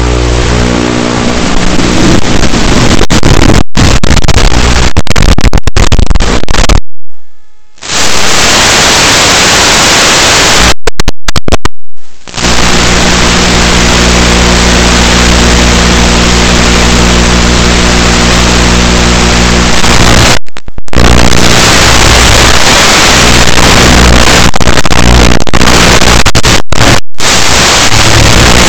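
Loud hiss and buzz of an analog FPV video receiver's audio static, with a steady low hum of evenly spaced tones under the hiss. The sound cuts out abruptly to silence several times, the longest for about a second some seven seconds in, and again about eleven and twenty seconds in.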